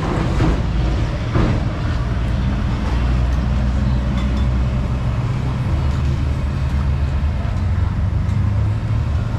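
A steady low hum, with a few metallic clinks of noodle strainers and utensils at a large steel stockpot in the first second and a half.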